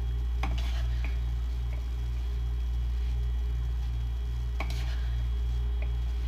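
A metal spoon scooping powdered starch from a jar and tipping it into a bowl, with a few light clinks of spoon on jar and bowl; two louder clinks come about half a second and four and a half seconds in. Under it runs a steady low hum with a soft pulse about twice a second.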